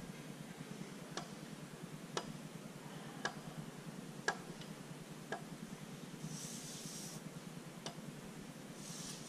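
A pen tip tapping down onto a sheet of paper on a wooden table, sharp ticks about once a second, with a short rustle of the paper sliding across the table about two-thirds of the way in and again near the end. A steady low hum runs underneath.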